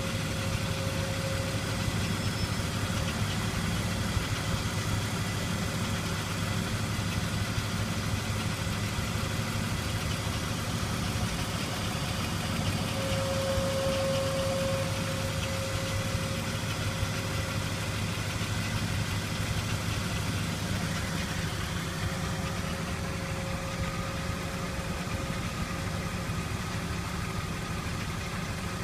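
BMW E39 engine idling with a steady hum, over which a higher whine swells and fades about three times: the weird noise under the car.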